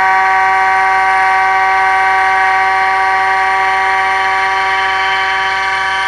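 Miracle A7 Plus key machine's cutter spindle running with a steady high-pitched whine while milling a HU64 Mercedes key blank.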